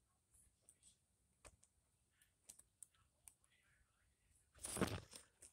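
Near silence broken by scattered faint clicks. About four and a half seconds in comes a louder burst of rustling as pepper-plant leaves brush against the phone.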